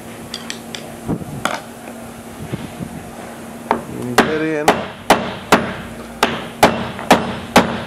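Hammer blows on a long screwdriver wedged into the groove of a spa receptacle's solid top cap, driving it down to break the threads of the centre shaft that is screwed into the cap. A few light taps come first, then from about halfway through a run of sharp, steady blows, about two a second.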